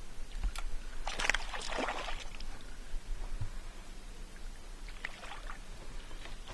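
Water splashing at a fishing boat, with a short click about half a second in, a bigger splash from about one to two and a half seconds, and a smaller one about five seconds in.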